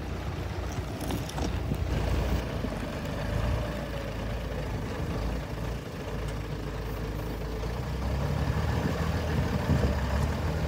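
Scania-Vabis LA82 truck's diesel engine idling with a steady low rumble.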